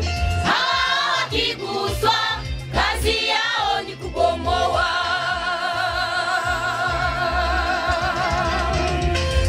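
Church choir singing a Pentecostal gospel song, the phrases giving way about halfway through to one long held note with vibrato, over a steady low bass.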